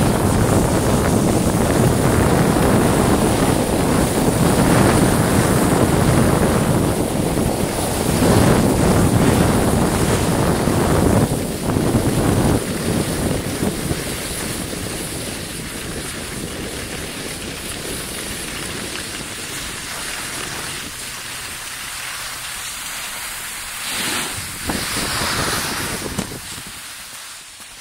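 Wind rushing on the microphone over the hiss of snowboards sliding on snow, as the camera moves down the slope. It is loudest in the first half, eases off after that, swells briefly near the end, then fades.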